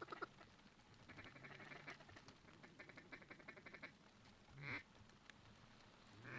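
Faint duck calling: a few single quacks and two runs of rapid chattering feed calls, with one quack about four and a half seconds in.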